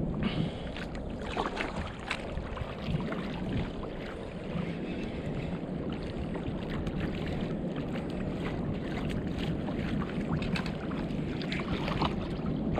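Small waves lapping and splashing against a plastic kayak hull, with scattered short knocks and splashes, over wind rumble on the microphone.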